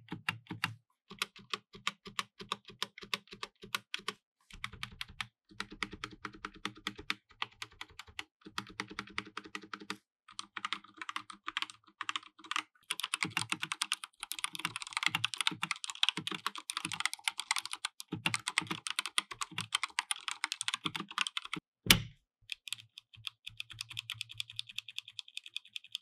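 Typing on an Akko 3108 V2 mechanical keyboard with Akko blue switches: a continuous run of clicky keystrokes that grows faster and denser in the middle, with one louder knock a little past twenty seconds in.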